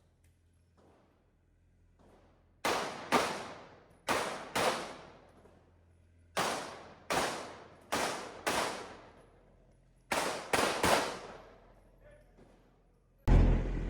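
Pistol shots fired on a timed competition stage: about eleven sharp reports, in quick pairs and singles, each with a ringing tail. Near the end a sudden, steady rush of noise sets in.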